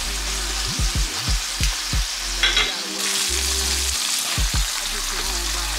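Food sizzling in a frying pan, a steady hiss, with repeated low thumps on top.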